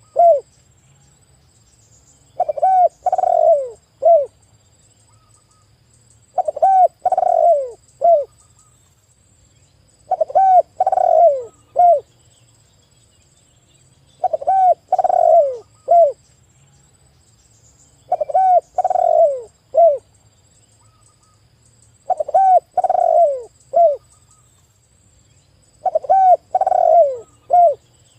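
Spotted dove (tekukur) cooing loudly, the same three- to four-note phrase repeated about every four seconds, seven times.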